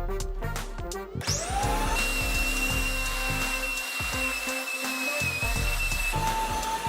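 A small electric blower motor spins up about a second in with a rising whine, then runs steadily with a high-pitched whine, over background music.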